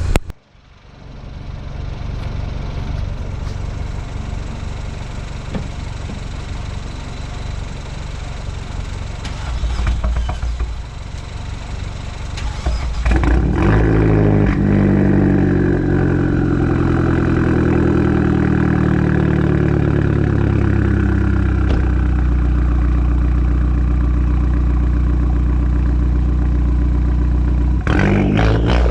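Mini Cooper S's turbocharged 1.6-litre four-cylinder engine idling as it warms up, running smoothly on a newly replaced ignition coil pack. About halfway through the engine sound gets louder and fuller, its pitch drifting slightly, and a few sharp clicks come near the end.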